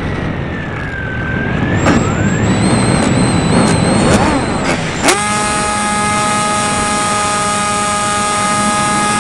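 Onboard sound of a homemade RC plane in flight: wind rush with a wavering motor-and-propeller whine and a few sharp clicks. About five seconds in, a sharp click, and the motor jumps to a steady, high-pitched whine at high throttle.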